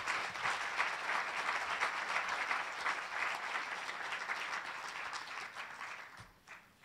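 Audience applauding, fading out about six seconds in.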